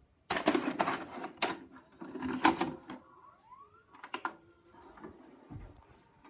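VHS cassette being pushed into a VCR's slot with clattering handling noise. The deck's loading mechanism then whirs up in pitch and clicks as it takes in and threads the tape, ending with a dull thump.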